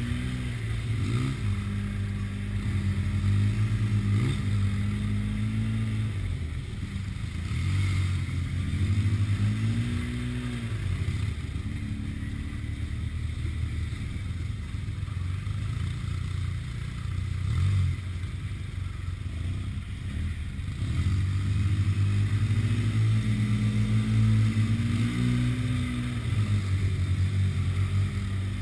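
Side-by-side UTV engine running at trail speed, heard from on board, its revs rising and falling over and over as the throttle is worked.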